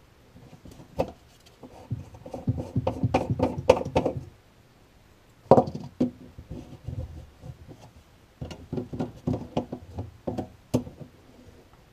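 White plastic P-trap pieces knocking and clicking as they are handled and test-fitted against a sink tailpiece and wall drain stub, in three flurries of small knocks.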